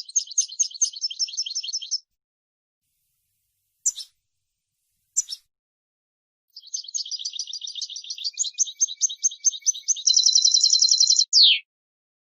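European goldfinch singing: a rapid twittering trill, two short calls, then a longer twittering phrase. The phrase ends in a loud, very fast rattle and a quick falling note.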